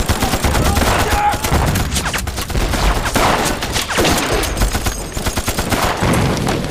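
Battle sound effects: dense, continuous gunfire from machine guns and rifles, shots crowding together without a break.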